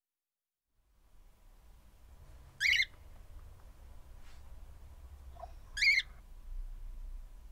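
Two short, loud bird calls about three seconds apart, with a couple of fainter calls between them, over a low steady hum.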